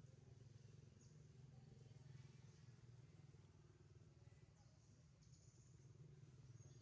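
Near silence: faint background with a steady low hum and a few brief, faint high-pitched sounds.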